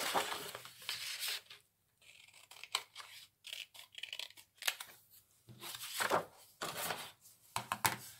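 Paper rustling as a sheet of scrapbooking paper is handled, then scissors snipping through the paper in several separate cuts.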